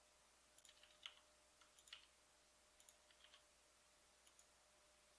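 Near silence with faint, scattered clicks of a computer mouse and keyboard, some in small clusters of two or three.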